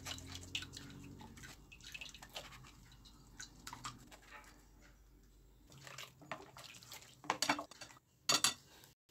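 Spatula scraping and tapping in a fine metal mesh sieve as blended watermelon pulp is pressed through it to strain out the seeds: a run of faint scrapes and clicks, with a few louder knocks near the end.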